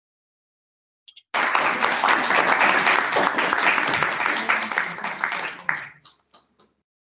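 Applause, heard over the video call: a dense round of clapping that starts about a second in and thins out to a few scattered claps near the end.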